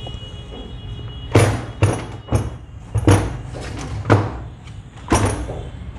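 Cast-iron sewing machine head knocking and thudding against the worktable as it is handled and turned upright, about six knocks at uneven intervals.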